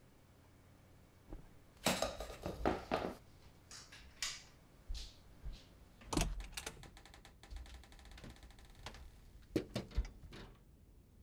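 A string of sharp knocks and clattering clicks: a cluster about two seconds in, a loud knock about six seconds in followed by a fast rattle of clicks, and two loud knocks near the end.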